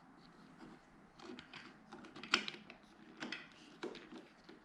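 Scattered light clicks and taps of hard plastic handguard deflector parts being handled and fitted together, the sharpest a little past halfway.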